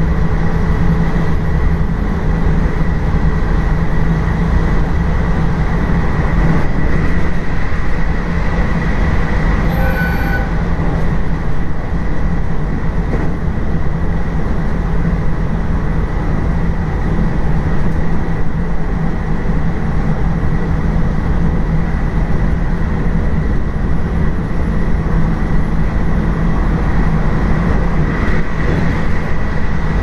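Local train running along the line, heard from inside the car: a steady rumble of wheels on rail with a faint high whine. A brief short tone sounds once about ten seconds in.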